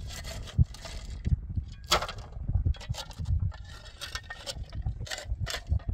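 A short-handled digging tool striking and scraping stony soil, giving irregular knocks and clinks of metal on stone, about nine in a few seconds, over a low rumble.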